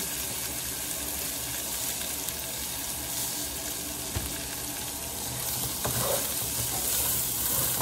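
Rice and browned vermicelli (sha'riyah) sizzling steadily in hot oil in a pot, being toasted for Arab-style vermicelli rice. About six seconds in, a wooden spatula starts stirring it with light scraping.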